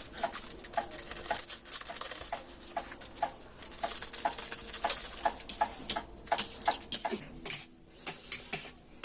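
Wet food sounds from a bowl of spicy instant noodles: soft, regular clicks about twice a second, sparser near the end.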